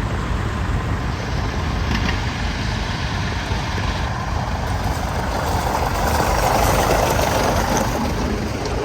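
Old tractor engines running as vintage tractors pull out and drive past one after another, the sound swelling as one passes close about six seconds in.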